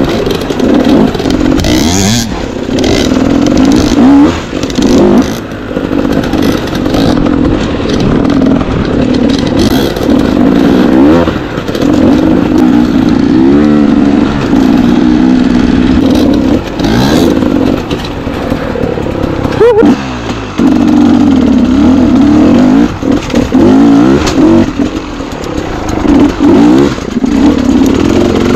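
Dirt bike engine being ridden hard off-road, repeatedly revving up and easing off, its pitch rising and falling with throttle and gear changes and dropping briefly several times.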